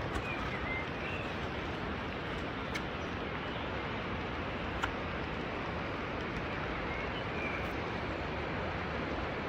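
Steady rain falling, with a few sharp drip-like clicks. A bird chirps briefly near the start and again about seven seconds in.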